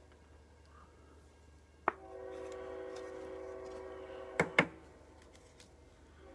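Train horn sounding a chord of several steady tones for about two and a half seconds, starting about two seconds in. A sharp click comes just before the blast and two louder clicks near its end, the loudest sounds here.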